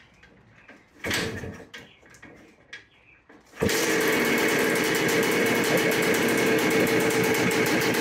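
1981 Yamaha YZ250 two-stroke engine, just rebuilt with a new top end, being kick-started on choke. A first kick about a second in doesn't catch; it fires about three and a half seconds in and keeps running steadily.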